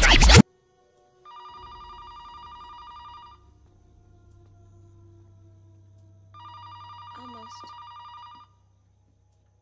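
A telephone ringing twice, each trilled ring lasting about two seconds with a pause between, over a faint low hum. A loud burst of music cuts off just after the start.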